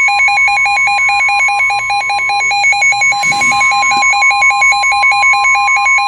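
NOAA Weather Radio 1050 Hz warning alarm tone, a loud steady whistle, with a weather radio receiver's rapid warbling electronic alert beep pulsing over it. A brief scratchy noise cuts in about three seconds in.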